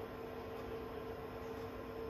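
Dell PowerEdge server's cooling fans running steadily during boot: an even whirring hiss with a steady two-note hum.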